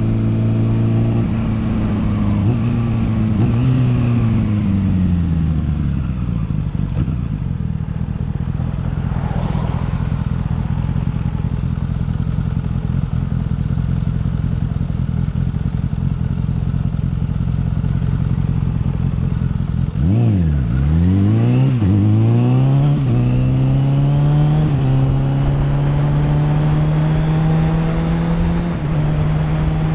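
Motorcycle engine heard from on the bike while riding. Its pitch falls as it slows in the first few seconds, and it runs at low revs for a while. About twenty seconds in it accelerates hard through several quick gear changes, each rev rising and then dropping, then cruises with the revs slowly climbing.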